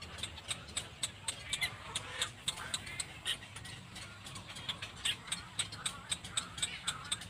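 Little black cormorants calling: short, wavering calls over a fast, even run of sharp clicks, about four or five a second.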